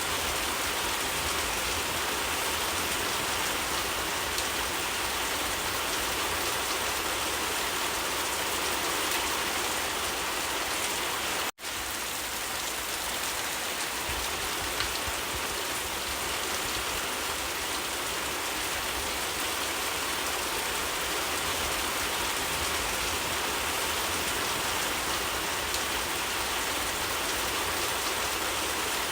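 Steady rain falling, an even hiss without a break in intensity. The sound cuts out for a split second a little over a third of the way through, then resumes.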